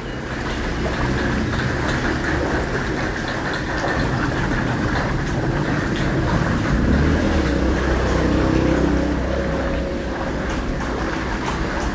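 Floodwater sloshing and splashing as someone wades through it, over a steady low rumble that grows a little louder about seven seconds in.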